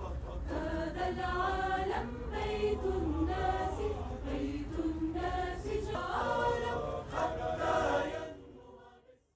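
A group of voices singing a slow, held melody together, fading out near the end.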